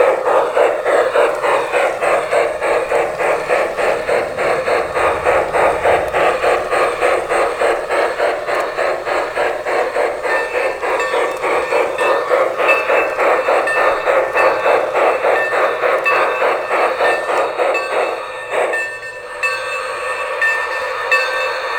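LGB 65001 American Steam sound unit in an LGB Forney model locomotive playing steady, even steam chuffing as the model runs. From about halfway, repeated bell-like ringing joins in. Near the end the chuffing stops and a steadier sound continues.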